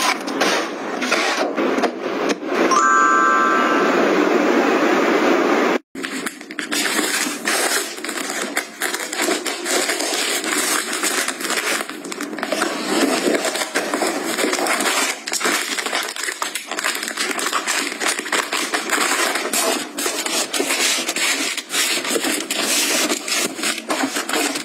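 Plastic-wrapped tissue packs crinkling and rustling as they are handled and stacked, with many small irregular crackles and taps. Near the start there is a few seconds of steady rushing noise with a brief tone, then a short break.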